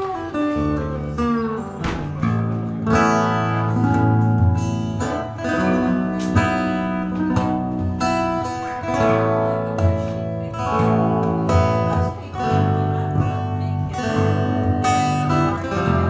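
Acoustic guitar playing: a run of picked notes that ring over sustained low bass notes, with occasional strummed chords.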